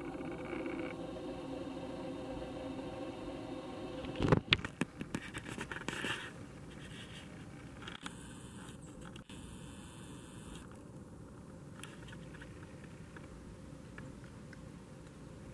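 A steady hum that stops with a sharp knock about four seconds in, followed by a couple of seconds of scratching, scraping and clicking, then a faint hiss.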